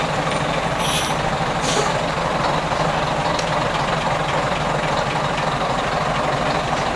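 Heavy diesel engines of classic trucks idling with a steady low rumble, the bonneted Scania nearest. There are two short hisses of air about one and two seconds in.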